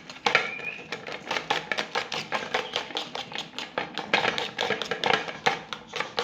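A utensil beating raw eggs with chopped onion and chillies in a bowl, clicking against the bowl several times a second.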